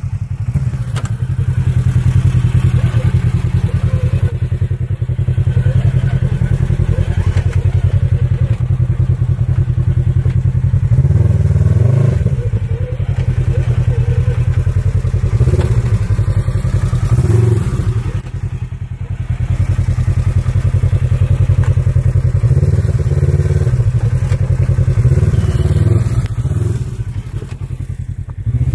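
Polaris RZR XP 1000 side-by-side's twin-cylinder engine running loudly as the vehicle is driven over a rough dirt trail, rising several times as the throttle is opened.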